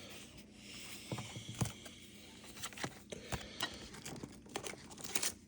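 Pokémon trading cards being handled and flipped through: light, irregular taps and rustles of card stock.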